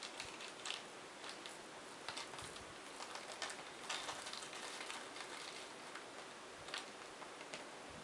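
Faint, scattered light clicks and rattles of small computer case screws being handled and put back into their container, over a low steady hiss.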